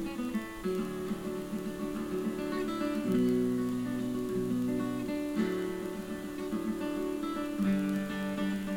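Background music: acoustic guitar strumming chords that change about every two seconds.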